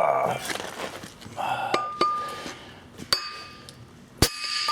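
A 2-pound hammer striking a flat-headed steel driver, knocking wheel studs into a truck's rear hub so that they seat fully. Three sharp metal blows, each ringing briefly, the last and loudest near the end.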